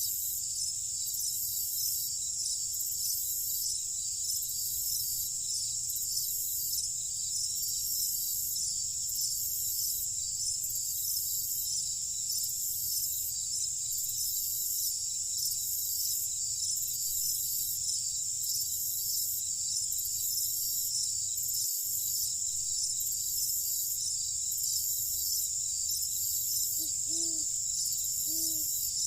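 Night insect chorus: a steady high-pitched trilling that pulses evenly, over a faint low rumble. Near the end come three short, low calls.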